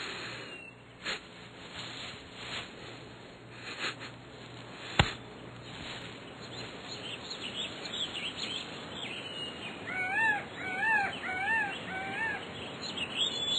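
Outdoor ambience with birds calling: four repeated rising-and-falling calls about ten seconds in, then higher quick chirps near the end. A single sharp click sounds about five seconds in.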